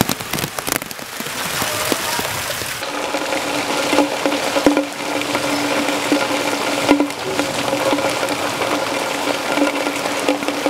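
Rain hiss on wet ground; from about three seconds in, a hand broom sweeps a wet yard floor in scratchy strokes over a steady low hum.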